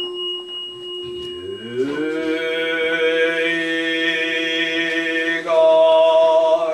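A Buddhist priest's voice intoning a long chanted note in the prayer, sliding up in pitch as it begins about a second and a half in and swelling louder near the end. Under it the tone of a bowl bell struck just before goes on ringing.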